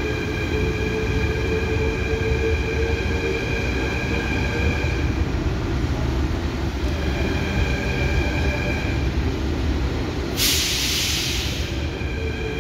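Athens metro train standing at the platform: a steady low rumble with several high steady whining tones that drop out twice. About ten seconds in comes a loud hiss of released air lasting about a second and a half.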